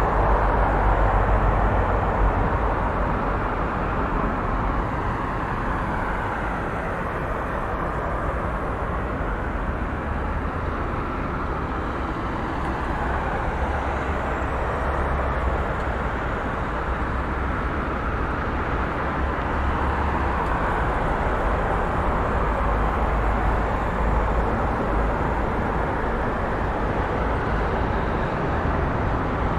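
Busy highway traffic flowing steadily: a continuous rush of tyre and engine noise over a deep rumble, swelling and easing slowly.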